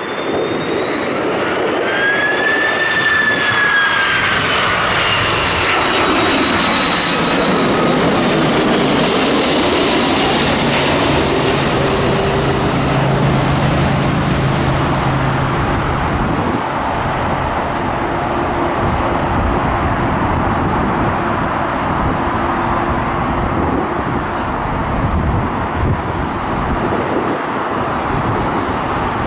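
Jet airliner passing low overhead on final approach to land. A high engine whine glides up and then falls in pitch as it passes. A broad roar peaks about eight to ten seconds in and settles into a long, steady rumble as the aircraft moves away.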